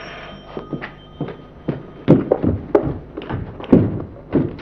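A recorded drama sound effect: a steady hiss that stops about a second in, followed by a run of short thuds or knocks, about two a second.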